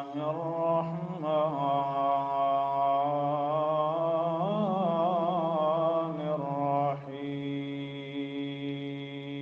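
A man's voice reciting Arabic in a slow, melodic Quranic-style chant, holding long steady notes with a wavering, ornamented run about halfway through. There is a brief break about seven seconds in, then another long held note.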